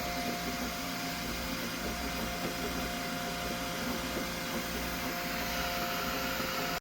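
Flashforge Adventurer 5M 3D printer running mid-print: a steady whir of its fans with a couple of steady tones over it.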